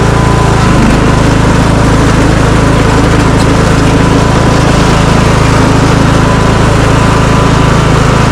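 Riding lawnmower's small engine running steadily and loud while the mower plows snow.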